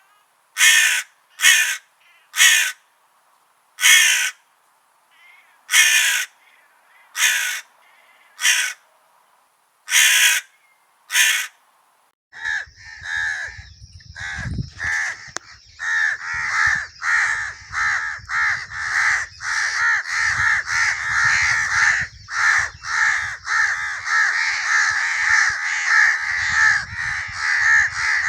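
Crows cawing: about ten separate loud caws spaced roughly a second apart, then from about twelve seconds in a dense chorus of many crows cawing over one another, with a low rumble underneath.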